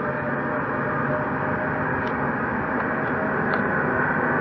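Airbus A330-300's jet engines at takeoff power on the takeoff roll: a steady roar with a faint whine above it, growing slowly louder.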